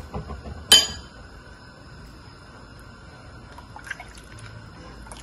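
A single sharp clink of a utensil about a second in, then a ladle stirring chicken broth in a nonstick pan, with soft liquid sloshing and a few small taps.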